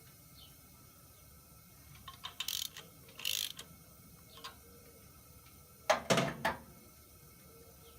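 Clicks and metallic rattling of tools and valve-spring parts being worked on a cylinder head, with a short hiss a little past three seconds in. A louder clanking clatter follows about six seconds in.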